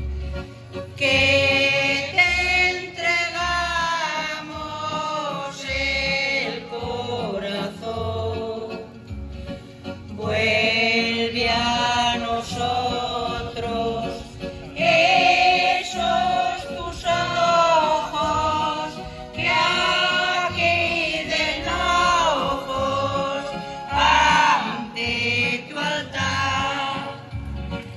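A small choir singing a hymn in phrases with short breaks, accompanied by an electronic keyboard and amplified through a loudspeaker.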